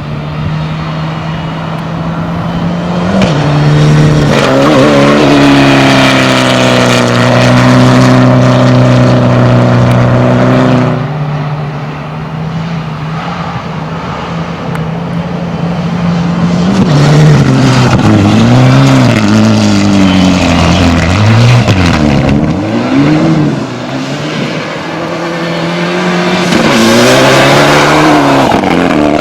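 Rally prototype car's engine at high revs, held steady for several seconds, then rising and dropping again and again as it is revved, shifted and lifted off at speed.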